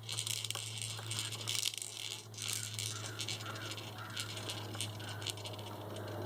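Plastic toys and parts of a baby jumperoo rattling and clicking in quick irregular bursts as the baby moves in the seat, over a steady low hum.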